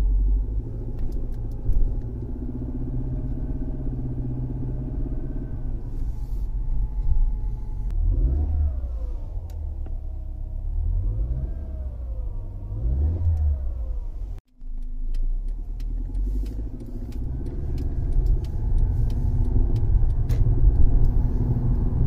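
Mercedes C250 (W204) four-cylinder engine droning heavily through the cabin while driving, its pitch rising and falling a few times midway and growing louder near the end. The owner takes the drone, with every engine revolution heard in the cabin, for compressed engine mounts.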